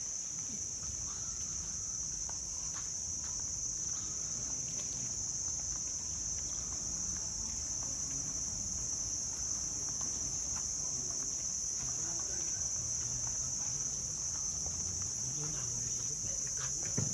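A steady, high-pitched insect chorus droning without a break, with a low rumble and a few faint clicks beneath it.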